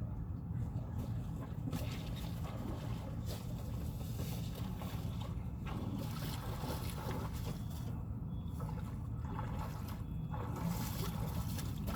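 Steady low rumble with surges of rushing, hissing noise, typical of a small craft moving over water.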